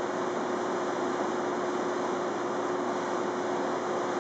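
Steady rushing hiss with a faint steady hum beneath it, unchanging throughout: the air-handling noise of an indoor shooting range.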